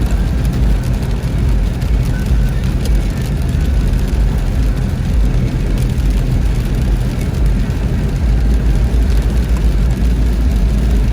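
Steady low rumble with faint scattered ticks above it.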